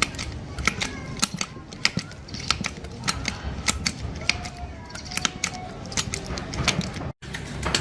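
Irregular sharp clicks and taps of hard objects being handled, with faint voices behind.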